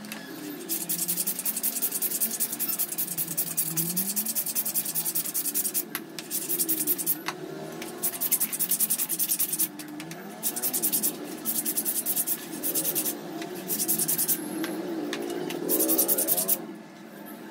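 Repeated rasping strokes of a tool cutting into a WPC panel, coming in runs of one to several seconds with short pauses between them.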